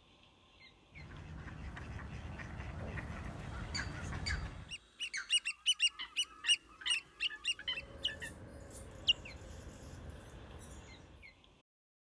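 Birds calling: a quick run of sharp, loud, repeated calls through the middle, with scattered single calls before and after, over a steady low background noise.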